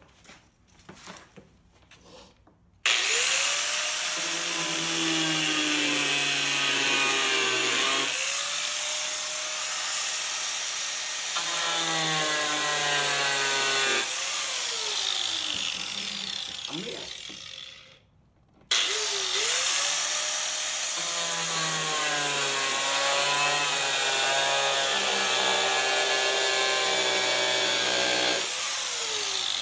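Electric angle grinder cutting through a plastic car bumper, its whine wavering in pitch with the load. It spins up about three seconds in, winds down and stops at about eighteen seconds, then starts again and runs until near the end.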